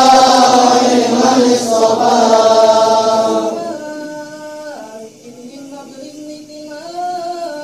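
Male vocal chanting of Arabic mawlid verse (a Rawi reading) in a melodious recitation style. It is loud and full for the first three and a half seconds, then drops to a softer single voice drawing out long, wavering notes.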